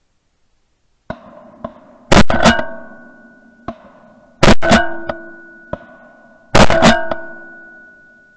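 Percussive music: three heavy drum-like hits about two seconds apart, each a quick double strike that leaves a ringing tone dying away, with a few lighter taps between them.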